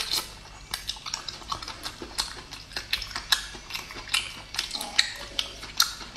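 Close-miked chewing of braised abalone: sharp, wet mouth clicks and smacks, about three a second.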